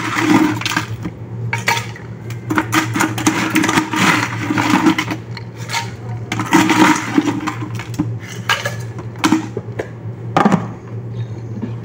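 A plastic scoop scraping and knocking inside a plastic tub as it scoops up a drink ingredient, in irregular bursts every second or two, with a sharp knock about ten seconds in. A steady low hum runs underneath.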